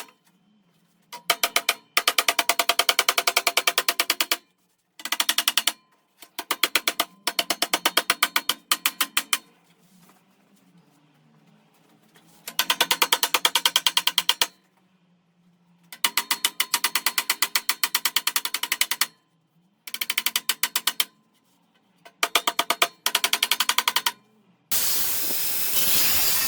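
Rapid hammer blows on sheet steel, shaping a seat pan over an edge: runs of fast, evenly spaced ringing strikes with short pauses between them. Near the end a steady harsh noise starts.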